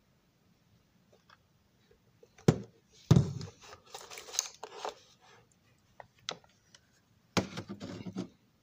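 An O gauge model passenger car body being handled and set down on a tabletop: a sharp knock, then a stretch of scraping and rustling, a single click, and near the end another knock followed by scraping.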